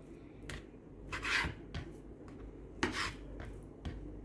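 Knife slicing raw chicken breast into long strips on a cutting board: a few drawn cuts at irregular intervals, some with a light knock of the blade on the board.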